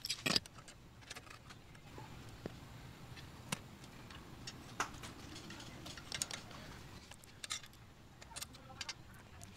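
Scattered faint metallic clicks and ticks as a steel brake cable and a hex key are handled at a bicycle disc brake caliper while the cable is loosened and pulled free.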